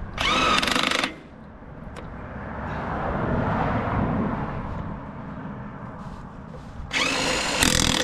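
Cordless power tool with a socket tightening the lug nuts on a trailer wheel: two short motor bursts of about a second each, one near the start and one near the end. In between, a broad rushing noise swells and fades.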